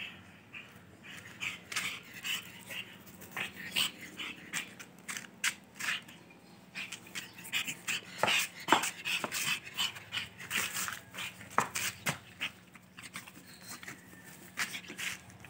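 Small pug-type dog making short, irregular whimpering noises in quick succession, with a few sharper calls that fall in pitch about eight and eleven seconds in.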